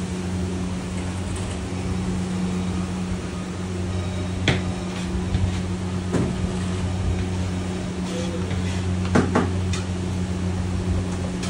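Steady low hum of kitchen machinery, with a few sharp knocks of utensils, two of them close together about nine seconds in.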